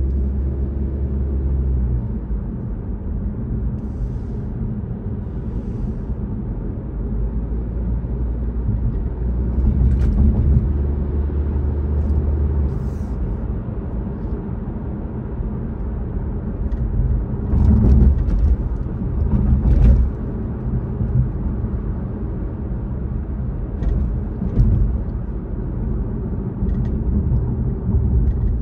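A car driving, heard as a steady low rumble of engine and tyres on the road. A few brief knocks come through, the loudest two close together past the middle.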